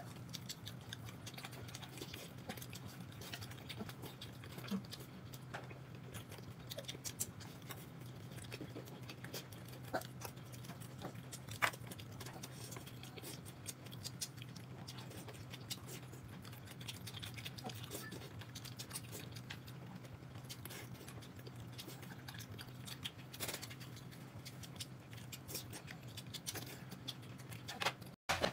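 People eating at a table: chewing with scattered light clicks and taps, over a steady low hum.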